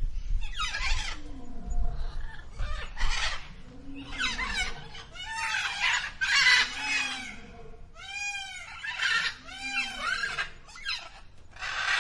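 Several domestic fowl calling over one another, with repeated squawks and clucks that rise and fall in pitch.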